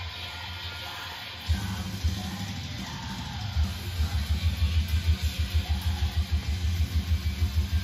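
Metal music with a heavy low end and a fast, pounding beat that gets louder about a second and a half in.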